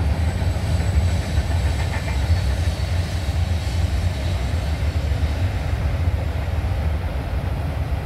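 Freight train cars rolling past, a steady low rumble of steel wheels on the rails.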